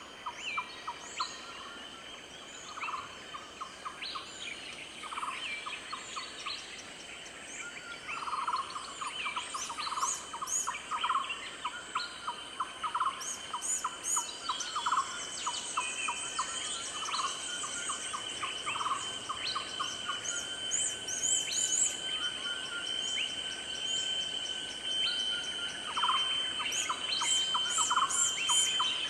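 A dense natural soundscape of birds and insects: steady high insect drones and many short bird chirps and calls, with a rapid pulsed trill that comes again every second or two.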